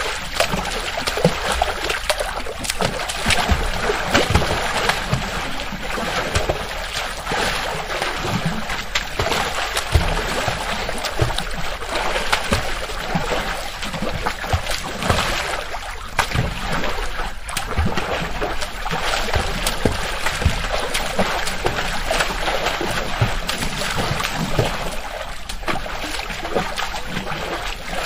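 Children playing in a swimming pool: continuous water splashing and sloshing, with many short, sharp splashes.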